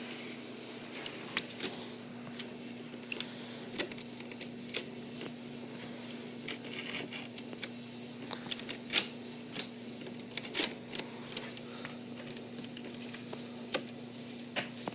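Scattered light clicks and taps of hand tools being worked and handled at a door jamb, coming at irregular intervals over a steady low hum.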